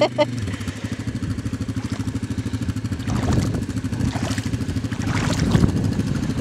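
Yamaha Grizzly 700 ATV's single-cylinder four-stroke engine running at low speed while driven through deep water, a steady rapid throb. A couple of brief splashing noises come a little past halfway and again near the end.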